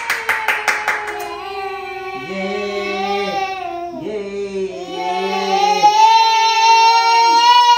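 A quick run of hand claps in the first second, then singing in long held notes with several voices in harmony, swelling louder near the end.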